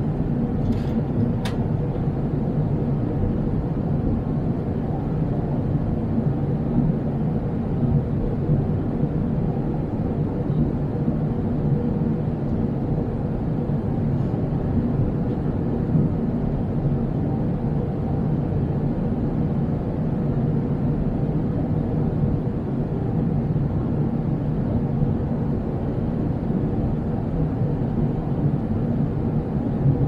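Jet airliner cabin noise at cruise: the engines and rushing air heard from inside the cabin as a steady, even low drone. Two faint ticks stand out in the first two seconds.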